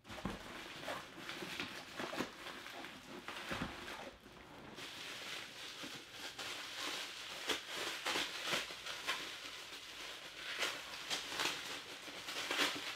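Bubble wrap rustling and crinkling as it is pulled off a boxed vinyl figure, in quick irregular crackles.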